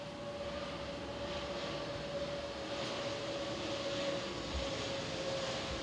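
Steady mechanical drone with a high whine that sinks slightly in pitch.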